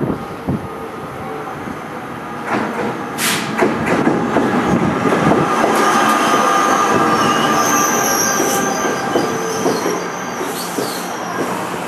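NJ Transit ALP-46A electric locomotive and multilevel coaches rolling into the station at close range, slowing to stop. There is steady rail noise with wheel clicks, a high wheel squeal in the second half, and a brief sharp noise about three seconds in.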